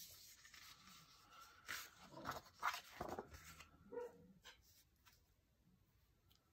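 Loose paper planner pages being slid and shuffled across a wooden desk: a run of faint papery rustles and scrapes, loudest in the middle, with a brief pitched squeak about four seconds in, then quiet handling.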